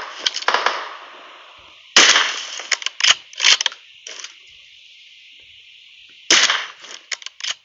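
Several bursts of sharp cracks and snaps, with quieter gaps of a second or more between the bursts.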